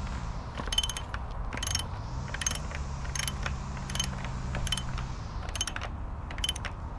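Ratchet wrench clicking in repeated back-strokes, about one stroke every second, as it tightens steel sleeve anchors into patio pavers. A low steady hum runs underneath.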